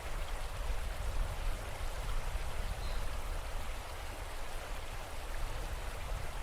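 Steady rushing water with a low rumble underneath, an even wash with no separate splashes or drops standing out.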